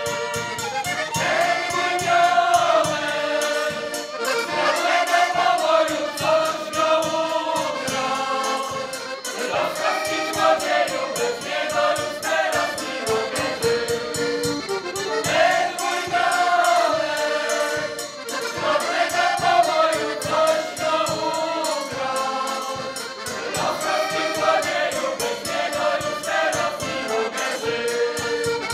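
Group of voices singing a traditional Polish folk song together, phrase after phrase of several seconds each.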